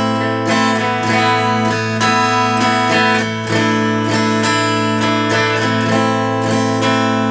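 Epiphone semi-hollow electric guitar strummed in a steady rhythm, playing an A minor chord that changes to A sus4 and back, with the open low A ringing under every strum.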